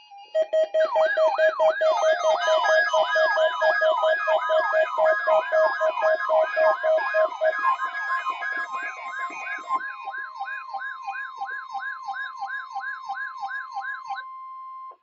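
Weather alert radio receivers sounding their alarms for a NOAA weather radio weekly test: several overlapping rising-and-falling siren warbles, about two to three a second, with a steady beeping that stops about halfway. A steady warning tone near 1 kHz is left alone near the end and cuts off suddenly.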